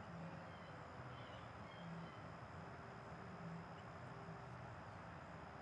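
Quiet background ambience: a faint low hum and steady hiss, with a few faint short high chirps about a second in.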